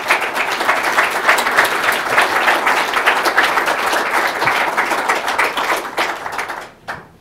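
Audience applauding: many hands clapping steadily, then dying away near the end with a last stray clap or two.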